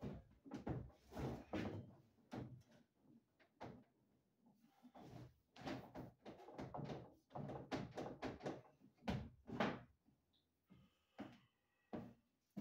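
Irregular knocks and thuds of a length of PVC conduit and its service cable being handled and set down on bare wooden floorboards, with footsteps on the boards near the end.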